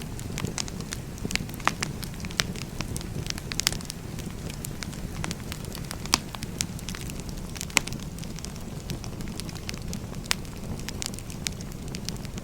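Firewood burning in a fire: a steady low rumble of flames with irregular sharp crackles and pops, the loudest about six and eight seconds in.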